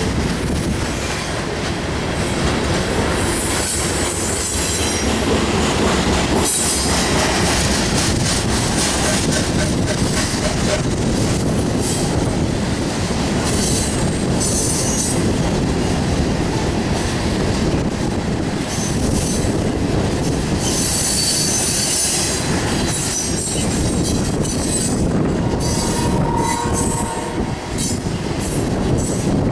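Loaded coal train's cars rolling past: a steady rumble of steel wheels on rail, with high-pitched wheel squeal that comes and goes several times.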